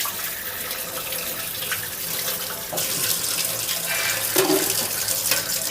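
Kitchen tap running steadily, with pieces of boiled chicken being rinsed under the stream to cool them down. The water stops at the very end.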